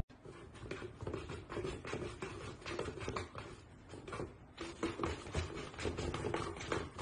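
Soft, irregular taps and scratches on cardboard as a kitten paws at an open cardboard box, several small clicks a second.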